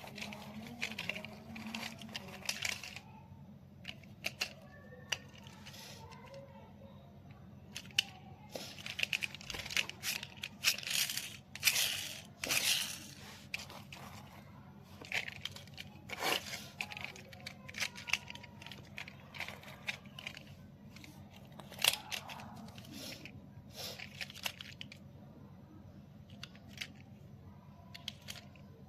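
Toy packaging being opened by hand: irregular tearing, crinkling and rustling of cardboard and plastic, with scattered clicks.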